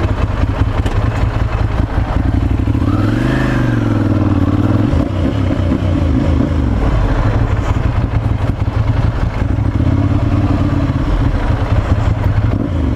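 Ducati Monster 796's air-cooled L-twin engine at low revs, pulling away with a brief rise and fall in revs about three seconds in, then running steadily at low speed, over a steady rush of wind and road noise.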